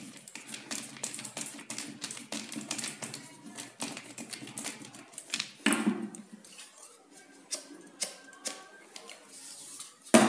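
Plastic parts of an HP 88A laser toner cartridge clicking and knocking as they are handled and set down: many small irregular taps and rattles, with a louder knock about six seconds in.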